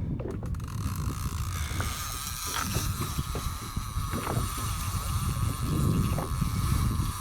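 Background noise aboard a fishing boat: a steady low rumble with a constant high whine that sets in about a second in, and a few faint knocks.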